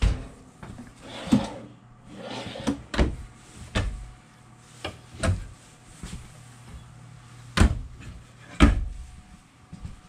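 A motorhome's kitchen cabinet doors and stainless oven door being opened and shut: a series of knocks and clacks, the two loudest near the end, over a low steady hum.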